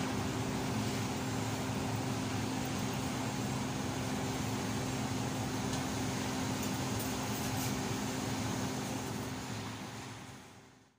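A steady hiss with a low hum, fading out to silence near the end.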